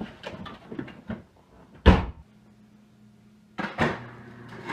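Car trunk lid slammed shut, one loud heavy bang about two seconds in, after a few small knocks and rustles of someone shifting inside the trunk. A low steady hum follows, with a short clatter near the end.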